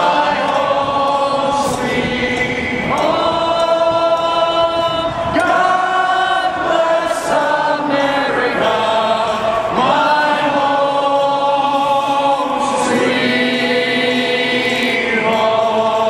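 A large crowd singing a song together in unison, in long held notes that move through a slow melody.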